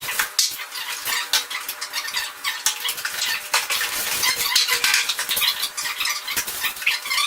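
Dense crackling and rustling with many small clicks and light clatters, typical of packaging being handled.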